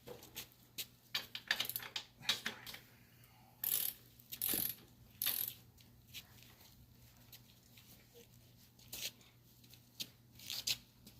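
Hand tools clicking, knocking and scraping on metal parts of a dirt bike's rear wheel. A quick run of sharp clicks comes first, then three short rasping scrapes, then a few more clicks near the end.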